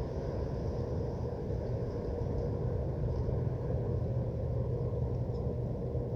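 Steady low industrial rumble from a foundry's machinery, with a faint steady hum tone above it and no breaks.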